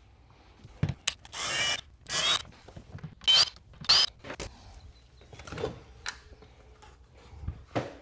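Cordless drill fitted with a star (Torx) bit backing out the screws that hold a Tesla Wall Connector to the wall, in several short whirs, the later ones rising in pitch as the motor spins up. A few knocks of the plastic housing follow in the second half.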